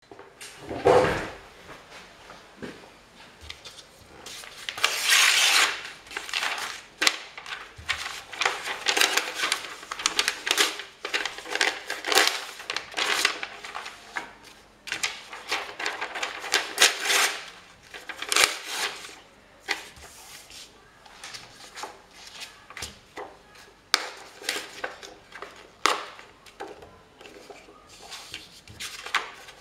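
Printed photographs and paper being torn, rustled and laid down on a large paper sheet: irregular ripping and crinkling, with a longer, louder stretch about five seconds in.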